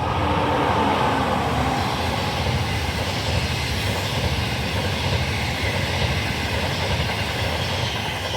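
Passenger train on the Laos–China Railway running at speed: a loud, steady rush of wheel and air noise, with a tone that drops in pitch during the first couple of seconds. The noise eases off near the end.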